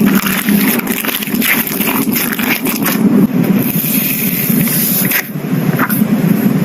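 Slime being squeezed and worked by hand, giving a dense run of crackles and pops with a continuous squishing underneath.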